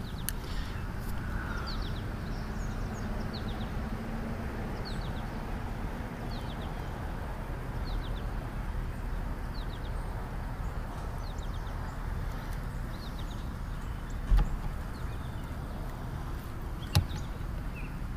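Quiet outdoor lake ambience: a steady low hiss with short, high bird chirps repeating every second or so, and two sharp knocks near the end.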